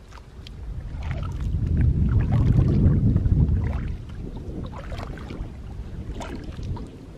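Double-bladed kayak paddle dipping and pulling through lake water beside a canoe, with light splashes and drips every second or so, over a low rumble that swells and then eases about four seconds in.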